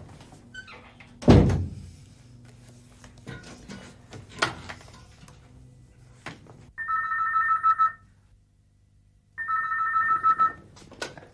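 A heavy thud about a second in, a door shutting, then a telephone ringing twice, each ring about a second long, a warbling two-tone trill.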